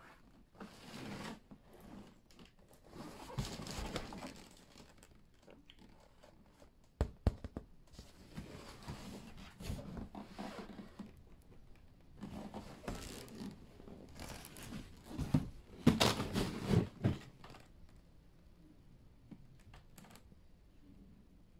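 A large cardboard box being handled by hand: rustling and scraping in bursts, with a few sharp knocks about seven seconds in and a louder cluster of knocks and scrapes around sixteen seconds, then it quiets down.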